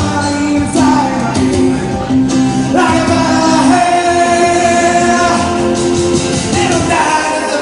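Live rock music: a singer holding long notes over a band, with a rising vocal slide about three seconds in.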